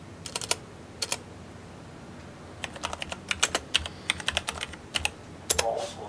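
Computer keyboard typing: a few keystrokes near the start, then a quick run of key clicks through the second half.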